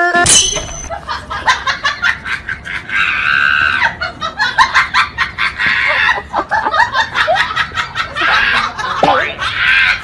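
A person laughing hard in rapid bursts, breaking into high shrieks.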